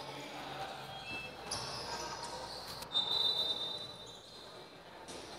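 Indoor basketball game ambience: a basketball bouncing on the court over crowd noise. About three seconds in, a shrill high tone lasting about a second.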